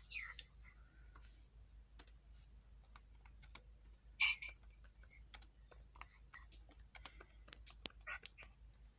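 Faint, irregular clicking of a laptop's touchpad and keys, with one louder brief rustle about four seconds in.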